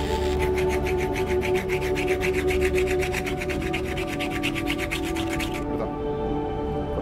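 Angle grinder disc rasping against a thin metal tube in an even pulse of about eight scrapes a second, stopping suddenly near the end. Background music plays throughout.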